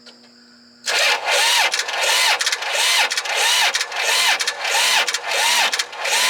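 Kubota D1105 three-cylinder diesel cranking over slowly on its starter motor without firing, the engine having no fuel supply. It starts about a second in with an even pulsing beat, the starter's whine dipping and recovering about one and a half times a second: low battery voltage, but even compression.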